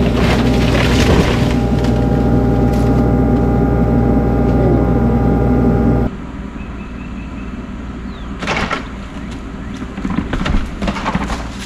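Excavator engine running hard, heard loud from inside the cab, with wood cracking near the start as the boom pushes over a dead tree. About six seconds in the sound drops to a quieter outdoor background, with the machine further off and a cluster of cracks a couple of seconds later.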